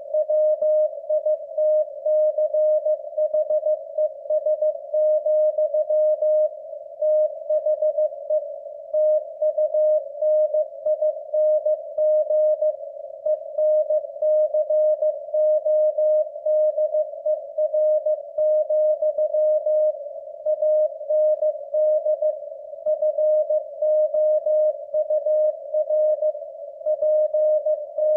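Morse code sent at 15 words per minute from W1AW's code practice transmission: a single steady tone a little above 600 Hz keyed on and off in continuous dits and dahs.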